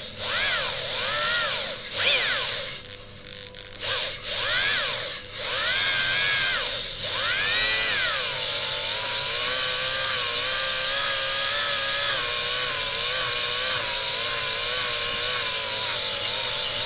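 Electric drill spinning a spring-loaded stone cylinder hone in an oiled engine bore, with the stones rasping on the cylinder wall. The motor speeds up and slows in several short runs, rising and falling in pitch, then runs at a near-steady speed from about halfway through. The honing is taking the shiny glaze off the bore and leaving a matte finish for new piston rings.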